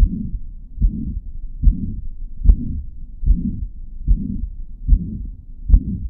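Heart sounds recorded through a digital stethoscope from a heart with mitral regurgitation: a pansystolic murmur, a continuous rushing sound that fills the whole of systole between the first and second heart sounds. It comes with about eight beats, each a little under a second apart.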